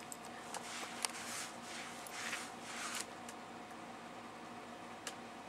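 Faint scratchy rasping of a cat licking and chewing at its paw, in short patches with a few soft clicks, over a faint steady hum.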